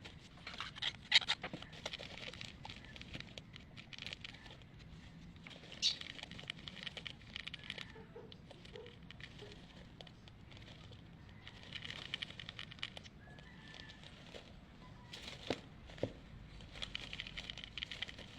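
Lovebirds making quick scratchy taps and rustles in short bursts of a second or two, several times over, with a couple of sharper taps and one brief faint chirp.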